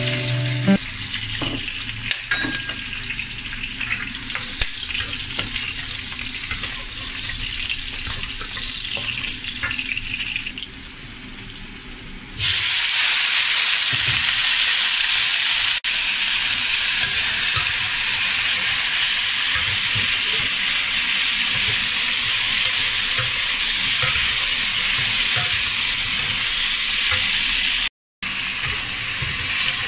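Whole garlic cloves sizzling in hot oil in a wok, with light spatula scrapes. About twelve seconds in, the sizzle jumps suddenly to a loud, steady hiss as cut long beans hit the oil and are stir-fried with a spatula; the sound cuts out for a moment near the end.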